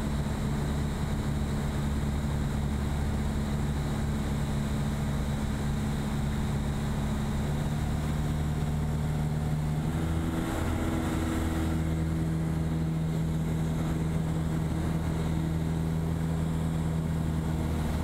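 Piper PA-28 single-engine light aircraft's engine and propeller drone, heard inside the cabin in cruise flight. The drone is steady, and its pitch shifts slightly about ten seconds in.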